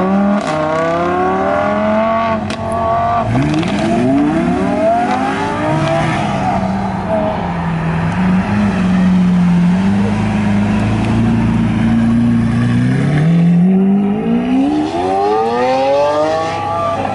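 Lamborghini engines accelerating hard: first a Huracán's V10 climbing in revs and dropping back through quick upshifts, then an Aventador's V12 running at low, steady revs before it climbs steeply again under full throttle near the end.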